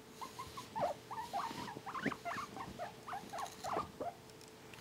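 Guinea pig squeaking while being stroked: a rapid, uneven run of short chirping squeaks, several a second.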